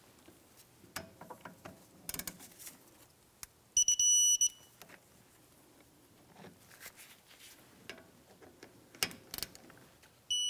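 Electronic torque wrench beeping as it reaches its set 24 ft-lb on the brake caliper bolts: one steady high beep of under a second about four seconds in, and another just at the end. Faint clicks and knocks of the socket and wrench on the bolt in between.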